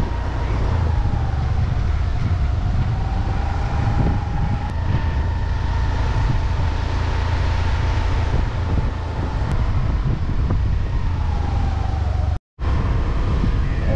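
Riding a motorbike: heavy wind rumble on the microphone over the running engine and road noise, with a faint steady whine that drifts slightly in pitch. The sound cuts out for a moment near the end.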